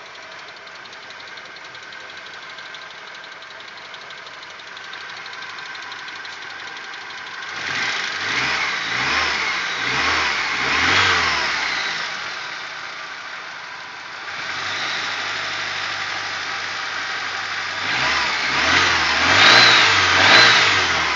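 Audi 1.8-litre 90 hp petrol engine idling with a light, even clatter, then revved up and down several times from about seven seconds in, held briefly at a higher speed, and revved again near the end. The owner takes the clatter for hydraulic lifters tapping, a noise that appears only once the engine is warm.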